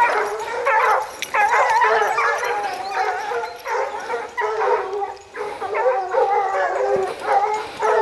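A pack of Petit Bleu de Gascogne scent hounds in full cry, many voices baying and howling over one another without pause as they run a wild boar's trail.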